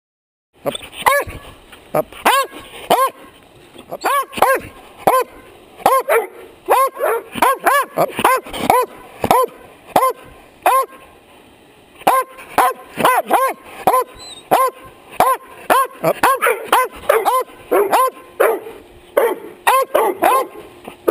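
A large dog barking into a chest-mounted camera from inches away, loud and close on the microphone. After a short silence at the start comes a long run of short barks, about two a second, broken by a few brief pauses.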